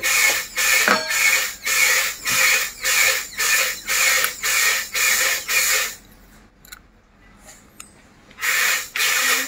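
Dental suction unit running with a steady pulsing hiss, about two to three pulses a second. It stops about six seconds in and starts again near the end.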